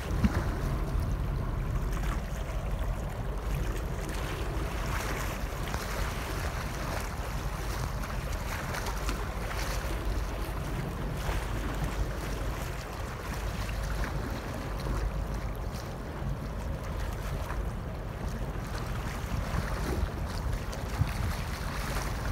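Wind buffeting the microphone with a steady, gusty low rumble, over the wash of choppy open water.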